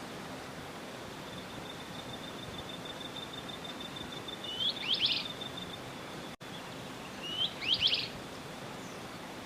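A small bird, the viuvinha, giving two short calls about three seconds apart, each a quick rising note followed by a few fast upward-sweeping chirps. Under the first call, and before it, runs a faint, steady, high pulsing trill, over a steady background hiss.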